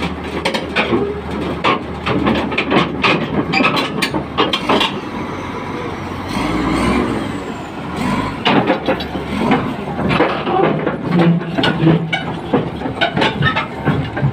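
Komatsu D65P bulldozer's diesel engine running steadily, with many irregular sharp clanks and knocks over it throughout.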